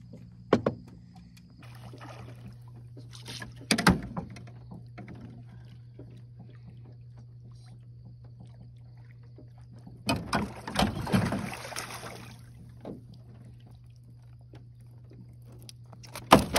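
A steady low mechanical hum aboard an aluminum jon boat, under scattered knocks. There is a sharp crack about four seconds in, and a couple of seconds of rushing, splashing noise from about ten seconds in.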